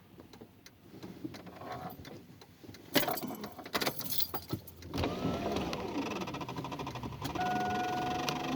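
Motor vehicle sounds: a rush of noise a few seconds in, then a steady engine rumble with a wavering pitch from about halfway. Near the end a steady electronic warning tone starts.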